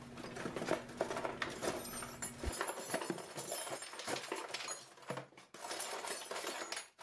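Hand tools and small metal hardware poured from a plastic bin into a plywood drawer: a continuous jumble of clinks, clatters and knocks. A low hum underneath stops about two and a half seconds in.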